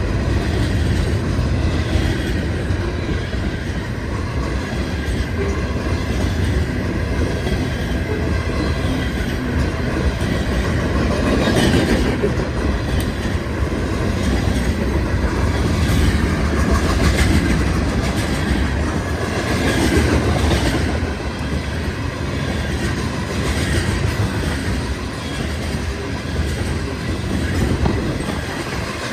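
Freight train cars rolling past at speed: a steady rumble of steel wheels on rail, with repeated clicks as the wheels cross rail joints.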